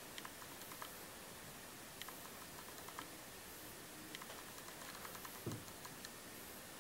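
Faint, scattered small clicks and ticks, in little clusters, from metal tweezers being handled and tapped together while isolating lashes and placing extensions, with a soft thump about five and a half seconds in.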